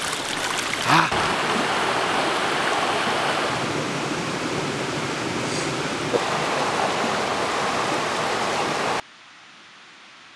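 Small mountain stream running over rocks: a steady rushing of water that cuts off suddenly about a second before the end, leaving a faint hiss.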